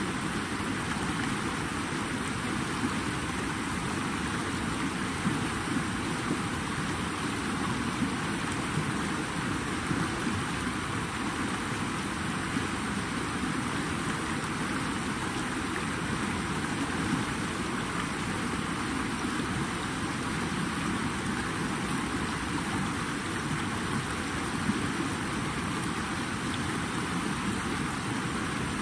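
Flowing water, a steady rushing wash with no pauses and a few slightly louder splashes.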